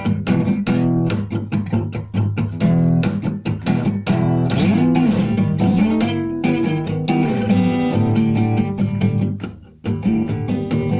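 Guitar music: plucked strings playing a melody over lower bass notes, with a brief drop-out shortly before the end.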